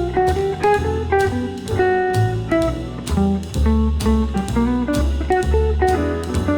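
Instrumental music: plucked guitar playing a melody over bass and a steady beat.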